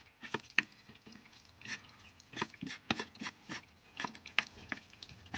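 A run of short, sharp taps and clicks at an uneven pace, a few a second.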